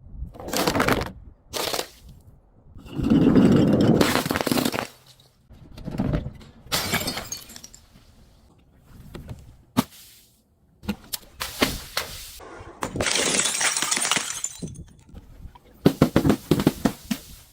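A series of separate breaking and crushing sounds, about ten of them with short gaps in between, some with the crack and shatter of glass.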